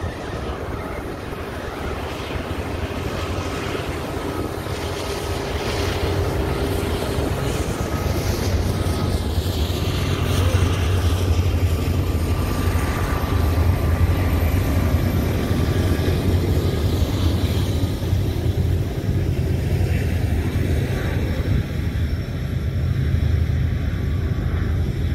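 BNSF diesel freight locomotives pass close by with a steady, low engine drone that grows louder over the first few seconds as they approach. Loaded coal hopper cars then roll past.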